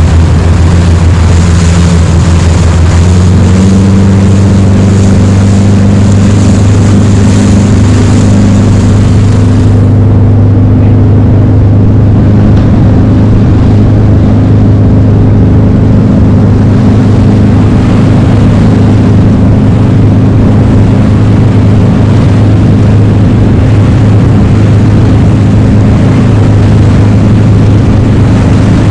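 Zodiac boat's outboard motor running under way in a steady drone, its pitch stepping up slightly about three seconds in. A high rushing hiss over it falls away about ten seconds in.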